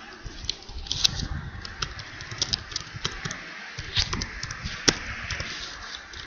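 Computer keyboard typing: irregular clicking keystrokes, several a second, over a steady background hiss.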